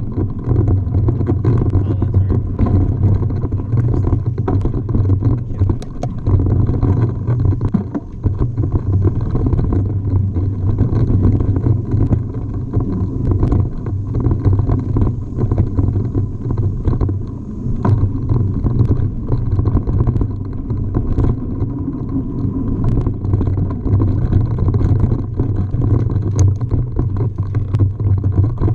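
Wind buffeting a bike-mounted camera's microphone as a mountain bike rolls over dirt singletrack, with frequent clicks and rattles from the bike over bumps.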